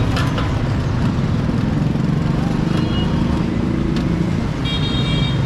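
Roadside traffic noise: a steady low rumble of vehicle engines. It has a few sharp clicks in it and a brief high-pitched tone near the end.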